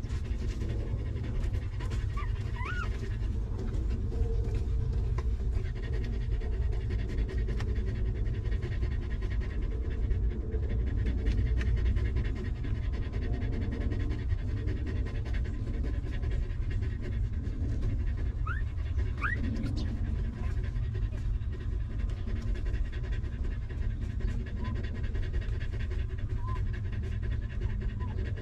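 A mother dog panting steadily beside her newborn puppies, over a constant low rumble. Thin, short rising squeaks from the newborn puppies come twice, once a few seconds in and again about two-thirds of the way through.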